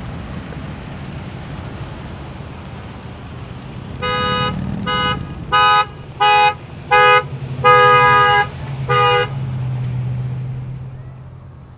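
A two-note car horn honks seven times in a quick irregular string starting about four seconds in, with one longer blast near the end of the series. Under it, the engines and tyres of vehicles driving past run steadily, swell, then fade away near the end.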